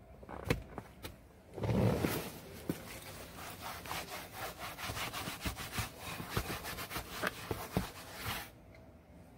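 A cloth rubbed back and forth over a leather car seat in quick, rhythmic strokes, which stop shortly before the end. A brief louder bump is heard about two seconds in.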